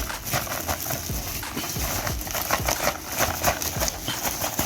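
Packaging being handled and opened by hand, a rapid irregular series of rustles, crackles and small clicks.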